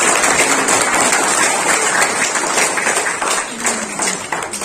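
A crowd applauding, many hands clapping together, dying away over the last second or so.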